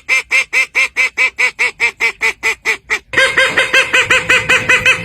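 A bird calling in a rapid, even series of short pitched calls, about four a second. About three seconds in it cuts abruptly to another series of similar calls, a little faster, over steady background noise.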